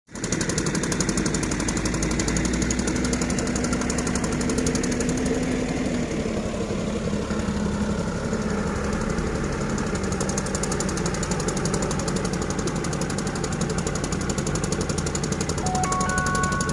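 Excavator's diesel engine running steadily with a fast, even clatter. Its pitch drops a little about six seconds in.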